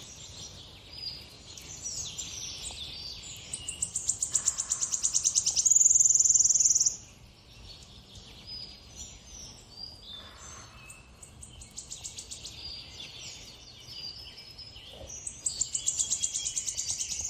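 Birdsong playing from a TV speaker: several high calls, with a rapid trill that runs into a loud, steady high note about four to seven seconds in, and another trill near the end.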